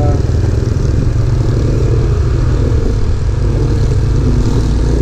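Motorcycle engine running at low speed, heard from the rider's own camera as a steady, loud low rumble mixed with road and wind noise.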